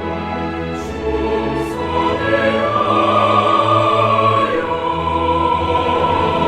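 Orchestral music with a choir singing in a slow, solemn style, with long held notes; a high sustained vocal line comes in about halfway through.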